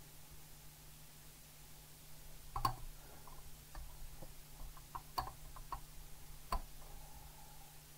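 Light clicks and knocks of a plastic model bulkhead and a small screwdriver being handled, starting about two and a half seconds in, with three louder knocks among smaller ticks.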